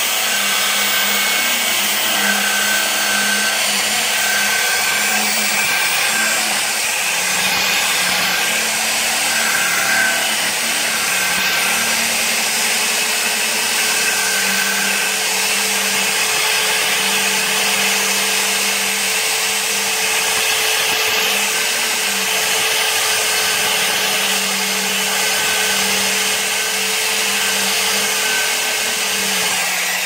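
Electric drill running steadily with a buffing wheel in its chuck, the wheel pressed against a steel knife blade to buff it to a shine.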